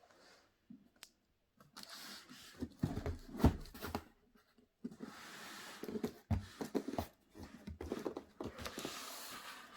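Unpacking an aerobic step platform from its cardboard box: cardboard and packaging rustling and scraping, with irregular knocks, the loudest about three and a half seconds in.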